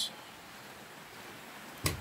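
Faint steady background hiss, then a single sharp click near the end.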